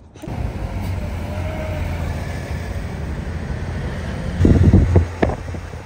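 Steady low rumble of a car on the move, with a louder, rougher stretch about four and a half seconds in.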